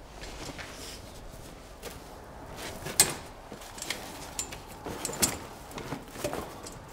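Shooting kit being handled and set up: a run of clicks, knocks and rustles from a bag, shooting sticks and air rifle, the sharpest knock about three seconds in.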